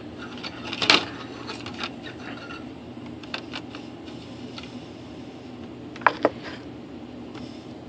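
A few short knocks and clicks of a connector, wire and tools being handled on a wooden workbench, then a sharper double metallic clack about six seconds in as the soldering iron is taken from its stand, over a faint steady hum.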